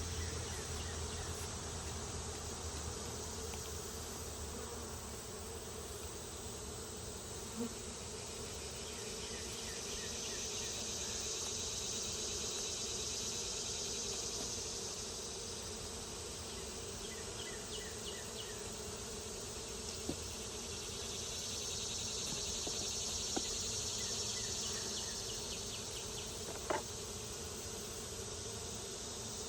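Honeybees buzzing steadily around an open hive. A higher-pitched insect hiss swells up twice, and there are a few faint clicks from handling the hive.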